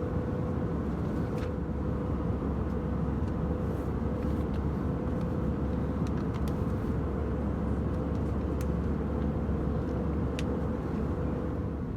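Airbus A320 cabin noise: a steady rush of engine and airflow noise with a constant hum-like tone, and a few light clicks or rattles.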